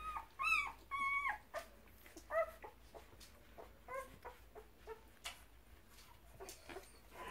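Dog whining: about five short, high whimpers in the first four seconds, one held a little longer, then a few light clicks and taps.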